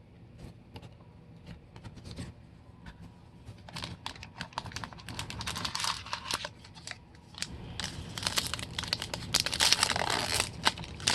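Wrapper of a baseball card pack being torn open and crinkled: irregular crackling and rustling that grows busier about halfway through and again near the end.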